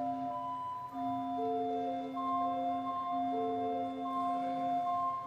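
Church organ improvising, a slow melody moving over one long-held lower note.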